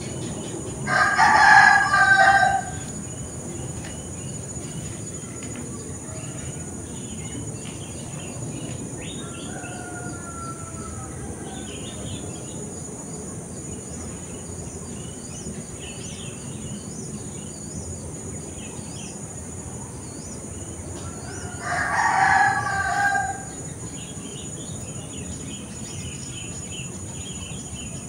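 Garden ambience: a rooster crows twice, once about a second in and again near the end, about twenty seconds apart. Between the crows there is a steady high insect drone and scattered small bird chirps.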